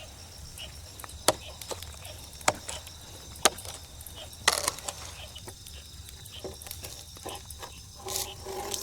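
A series of sharp knocks and taps at irregular intervals, about a second apart at first and then lighter, over a faint steady background, with a brief pitched sound near the end.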